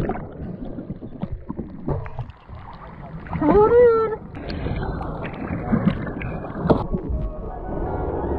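Water sloshing and bubbling around a camera at the water's surface as snorkelers enter the water, with one short high-pitched whoop, rising and then falling, about three and a half seconds in.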